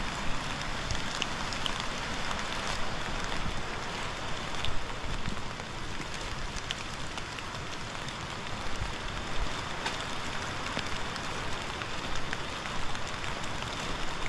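Steady rain falling in woodland: a constant hiss with scattered sharper drop ticks throughout.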